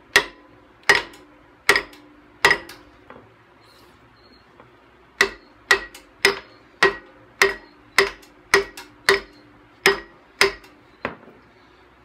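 A sledgehammer tapping a stuck part off a Chevrolet LT1 engine block: sharp metal-on-metal blows, each with a brief ring. Four come about a second apart, then a pause of a couple of seconds, then a run of about ten quicker blows, roughly two a second.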